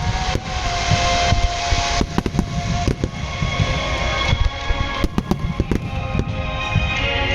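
Fireworks display: many shells bursting in quick succession, sharp bangs over a continuous low rumble, with music playing along.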